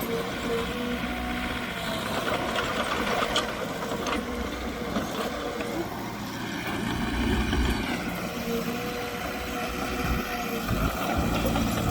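Heavy diesel earthmoving machinery running steadily under load, with a faint steady tone that comes and goes several times and a couple of brief knocks.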